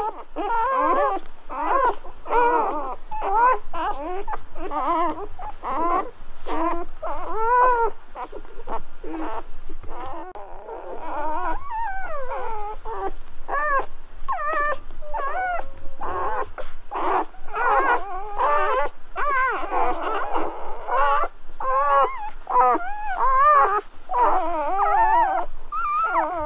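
Newborn golden retriever puppies whimpering and squealing: a constant stream of short, high cries that rise and fall, several puppies calling over one another.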